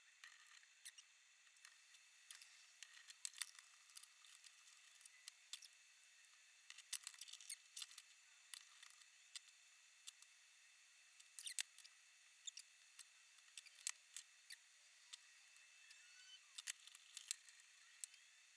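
Faint, irregular clicks and taps of 3D-printed plastic blaster parts and screwdrivers being handled and set down on a wooden desk during assembly, coming in small clusters with quiet gaps between.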